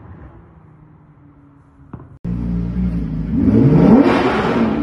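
Faint distant traffic hum, then suddenly a loud car engine close by accelerating hard: its pitch climbs steeply for about a second, then falls away near the end. The car is a sports car or supercar.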